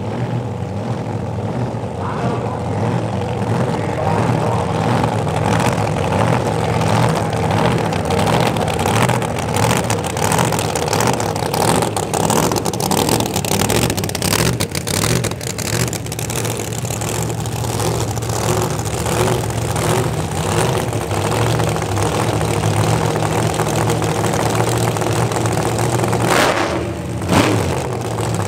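Funny car V8 engines idling loudly through open headers, with a crackling, lumpy exhaust. A sharp rev comes near the end.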